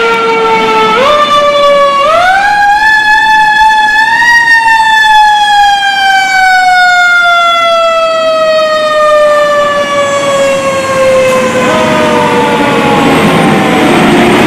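Fire truck siren wailing: its pitch climbs over about two seconds, then falls slowly and steadily for about ten seconds. Near the end the rumble of a fire truck passing close grows louder under the siren.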